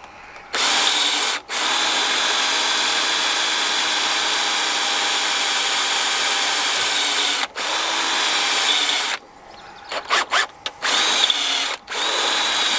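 Cordless drill running in a long steady run of about eight seconds, cutting out briefly twice, then a few short bursts and another run of about two seconds near the end.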